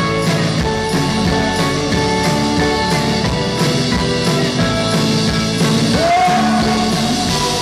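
Live band playing loudly: sustained keyboard chords, electric guitar and a steady drum beat, with a woman's voice sliding up into a held note about six seconds in.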